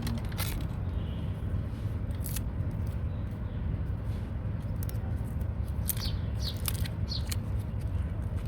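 Scattered short scrapes and clicks as the metal-foil cover of an iPhone 7 battery is torn and peeled away by hand, over a steady low rumble.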